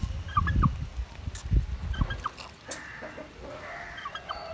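Domestic poultry clucking: three short clusters of clucks, with a few dull low thumps in the first couple of seconds.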